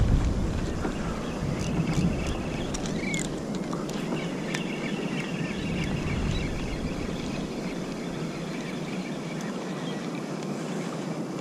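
Steady wind and sea noise around a fishing kayak on open water, with a low rumble that eases off about halfway through, a faint high whine and a few small clicks.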